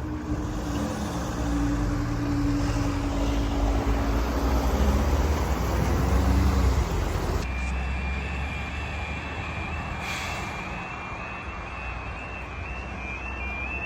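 A Northern Ireland Railways diesel train's engine running as it pulls away, growing louder and then dropping off. After a cut, a high alarm alternating between two tones starts up.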